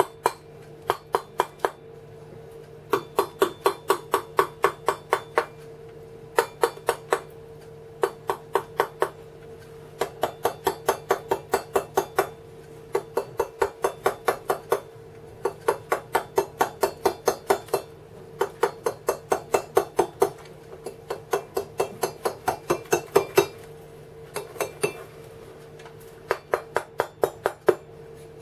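A wooden mallet striking a steel carving chisel in quick runs of light taps, about four or five a second, with short pauses between runs, as the chisel cuts into stone. A steady hum runs underneath.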